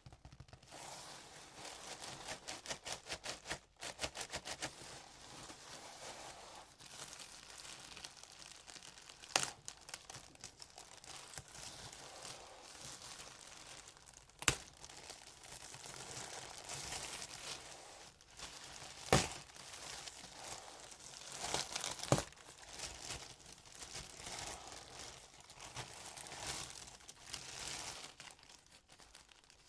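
Packaging being handled and opened by hand: continuous crinkling and tearing, with a quick run of ripping strokes about two to four seconds in, and four sharp clicks or taps spread through the rest.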